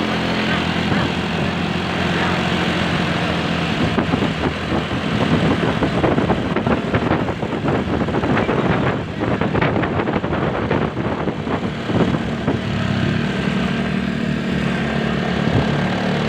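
A road vehicle's engine running steadily with a low, even hum, overlaid by rough, uneven traffic noise from about four seconds in to about twelve seconds in.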